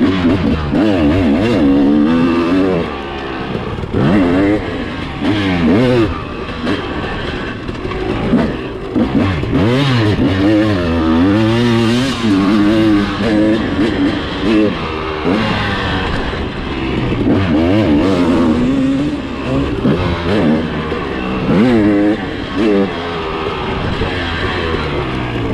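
Motocross dirt bike engine under hard riding on a dirt track, revving up and falling off again every second or two as the throttle is worked.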